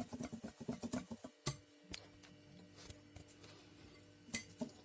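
Cake batter being mixed in a bowl, the utensil clicking rapidly and regularly against the bowl, about six ticks a second. It stops a little over a second in and is followed by a few single clicks.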